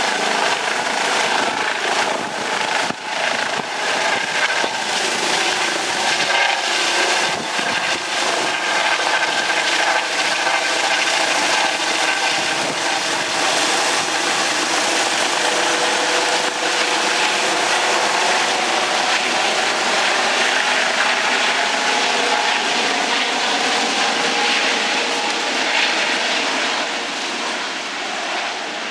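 ADAC rescue helicopter in flight just after takeoff: steady, loud turbine and rotor noise, its tones bending slightly in pitch in the later part and easing a little near the end.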